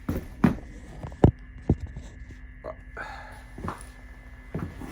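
Hammer blows on a manual impact driver, trying to break loose a very tight Phillips screw in an engine cam cover: a handful of sharp metallic strikes, the hardest about a second in, with lighter taps after.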